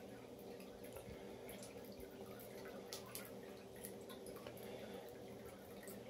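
Electric pet water fountain running: faint trickling and dripping of circulating water over a steady low hum.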